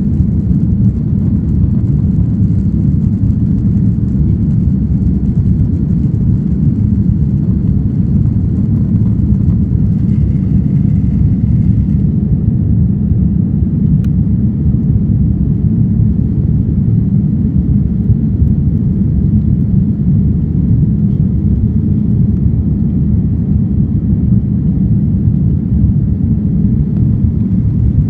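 Steady low cabin rumble of an Airbus A330-300 climbing after takeoff: engine and airflow noise as heard from inside the passenger cabin.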